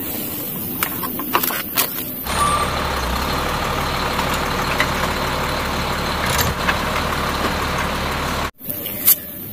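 A few sharp plastic clicks from toy vehicles being handled. Then a garbage truck runs with its automated side-loader arm gripping and lifting a wheeled bin: a steady mechanical noise with a low hum that starts suddenly a couple of seconds in and cuts off abruptly near the end.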